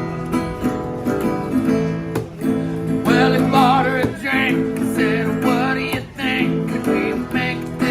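A strummed acoustic guitar playing a slow country-style song; a voice begins singing about three seconds in.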